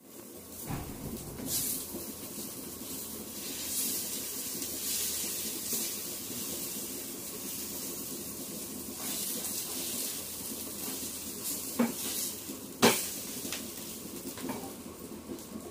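Food sizzling in a hot pan, a steady hiss, with stirring and two sharp knocks of a utensil against the pan about twelve and thirteen seconds in.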